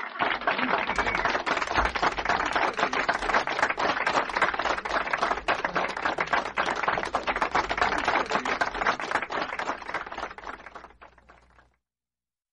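Continuous crackling and rubbing of a rubber balloon as a small child blows into it and grips it, many small rapid clicks and squeaks; it fades and stops near the end.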